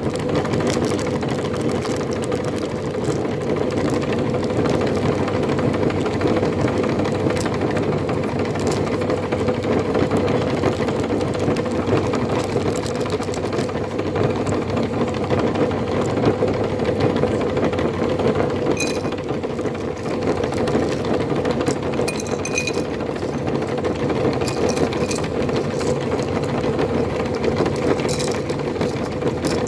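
Electric meat grinder running steadily under load as it grinds a sticky glutinous rice cake mixed with powdered shrimp, with scattered sharp clicks and crackles, more frequent in the second half.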